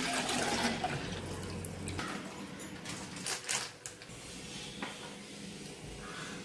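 Milk pouring from a jug into a stainless-steel saucepan, a steady liquid splashing that fades out after about two seconds, followed by a few light knocks.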